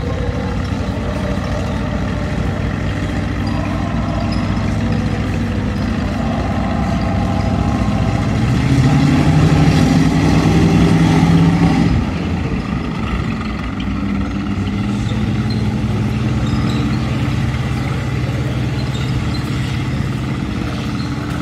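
M5 Stuart light tank's twin Cadillac V8 engines running as it drives. The engine note rises in pitch and loudness about halfway through, drops sharply a little later, and then settles to a lower steady drone.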